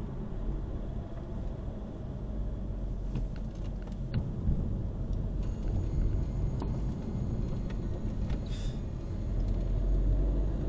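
Car engine and tyre noise heard from inside the cabin while driving: a steady low rumble, with a few faint ticks.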